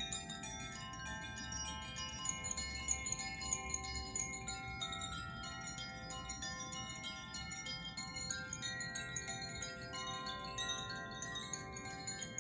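Handheld tuned sound-healing chimes played continuously: a dense, unbroken tinkling of many overlapping ringing tones that sustain and blend into one another.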